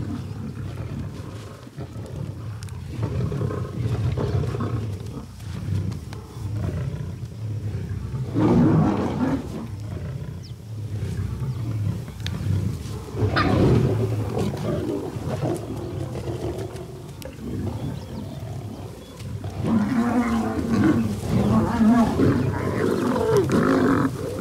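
A group of lions growling as they fight over a baboon carcass: a constant low rumble, with louder outbursts about a third of the way in, just past halfway, and again through the last few seconds.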